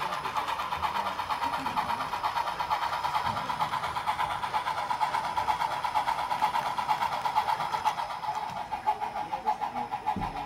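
Model Southern Pacific steam locomotives running along the layout track, a steady running sound that pulses several times a second. Faint voices in the background.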